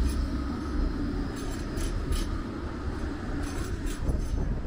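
Blackpool heritage tram running on its rails, a steady rumble with a handful of sharp clicks from the wheels. Wind buffets the microphone.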